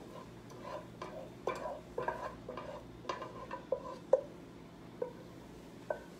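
A spoon scraping sautéed onion and garlic out of a skillet into a slow cooker crock: a dozen or so short, irregular scrapes and taps against the pan, each with a slight metallic ring.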